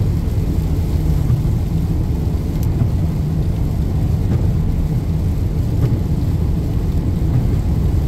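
Steady low road rumble inside a moving car's cabin on a rain-soaked highway, tyres and engine running with a haze of rain noise over it.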